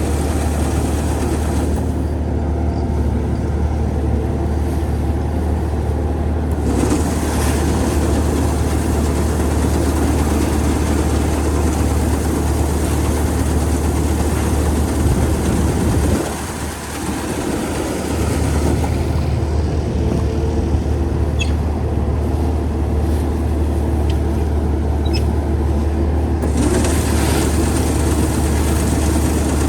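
An engine running steadily with a deep hum, dropping briefly in level about halfway through before picking up again.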